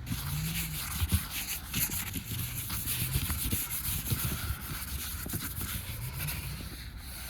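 Irregular scraping and crunching in snow, a run of uneven scratchy strokes.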